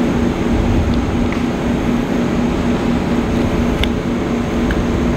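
Steady low mechanical hum with a rumble underneath, as of an idling engine, with a couple of faint clicks about four seconds in.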